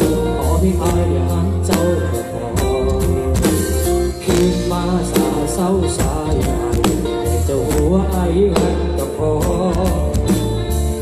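Live band playing through a big stage sound system, recorded on a phone: heavy, punchy bass, a steady drum beat and a bending lead melody line.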